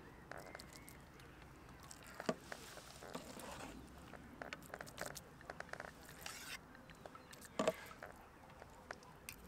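Faint, scattered clicks and light knocks over a quiet background, with a sharper knock about two seconds in and another a little before the end.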